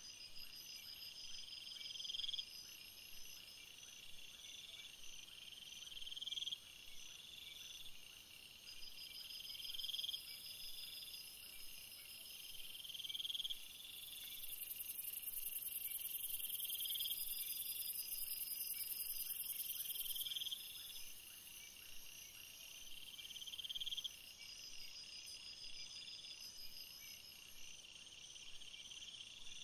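Insects calling, cricket-like: a steady chorus of high chirping with a stronger trill repeating about every two seconds. A very high, steady insect buzz joins for about six seconds in the middle.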